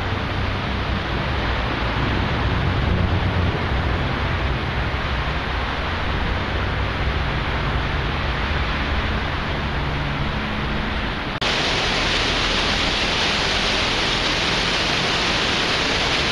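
Steady rushing noise of sea surf, with wind rumbling on the microphone. About eleven seconds in it switches abruptly to a louder, brighter hiss of waves washing below a pier.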